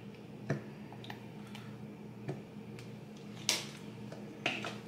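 Plastic squeeze bottle of sauce being handled over a glass bowl: a few soft clicks and taps, then a short hissing squirt about three and a half seconds in and one more click. A steady low hum runs underneath.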